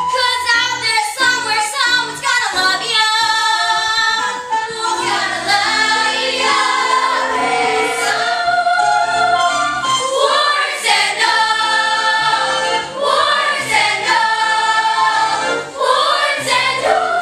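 Children's voices singing together in a stage musical number, over instrumental accompaniment with steady low notes.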